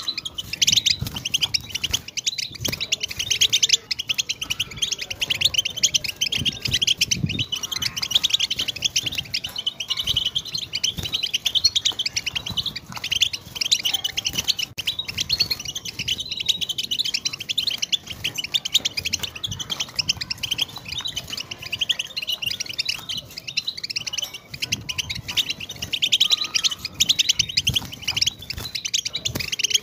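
European goldfinch singing a continuous song of rapid high twitters, chirps and trills with hardly a pause.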